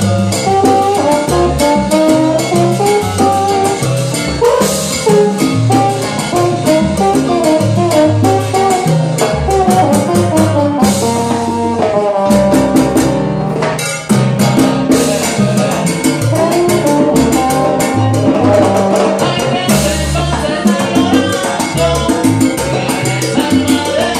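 Live salsa band playing an uptempo tune, with keyboard, bass and hand percussion such as congas and timbales driving the rhythm.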